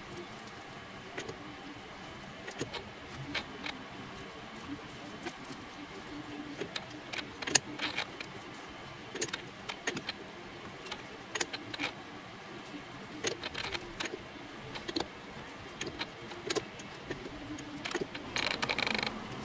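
Scattered metallic clicks and knocks from a four-jaw lathe chuck being turned and adjusted by hand while a workpiece is dialled in, with a rattle of about a second near the end.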